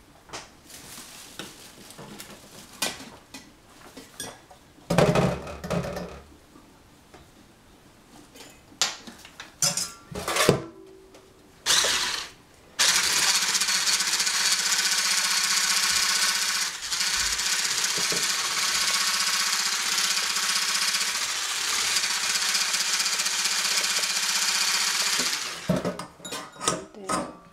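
Electric hand blender with a whisk attachment running steadily for about twelve seconds, whisking egg-and-mascarpone cream in a metal saucepan until it is blended smooth. Before it switches on, there are scattered knocks and clatters.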